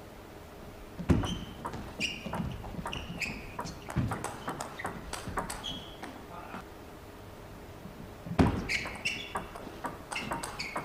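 Table tennis rally: the plastic ball clicks sharply off the paddles and table in quick runs, the hardest hits about a second in and again near the end. Short high squeaks from players' shoes on the court floor come in between the hits.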